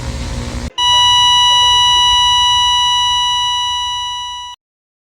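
A loud, steady electronic beep: one unbroken tone with overtones, lasting about four seconds and cutting off suddenly. Before it, for under a second, a low rumbling noise.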